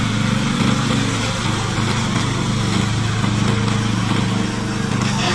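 Gasoline engine of a remote-control tracked brush mower running steadily.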